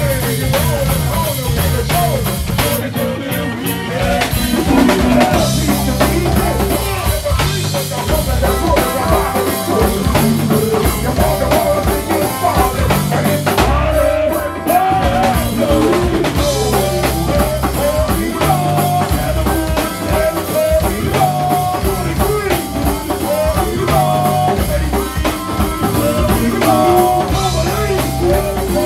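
Live go-go band playing: a drum kit keeps a steady beat under a stepping bass line and electric guitar, with voices on microphones over the top.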